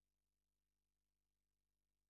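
Near silence: digital silence with only a very faint steady hum.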